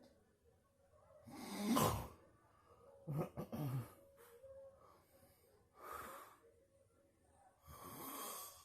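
Snoring: four noisy breaths about two seconds apart, the first the loudest and the second broken into several short snorts.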